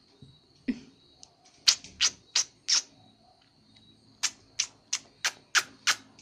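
A run of short, sharp clicks: one just under a second in, four more in quick succession around two seconds, then six evenly spaced near the end.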